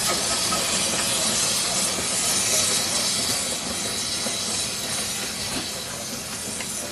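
Miniature 15-inch gauge steam locomotive hissing steadily as it runs slowly along the track, the hiss fading as it moves away.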